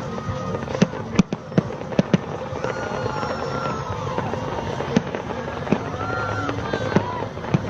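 Fireworks display going off: a run of sharp bangs at irregular intervals, roughly one or two a second, over a steady background of crowd and festival noise.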